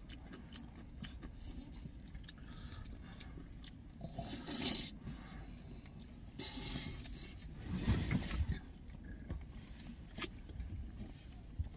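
Eating sounds: jjajangmyeon (black-bean noodles) slurped and chewed, in a few short noisy bursts about four, seven and eight seconds in.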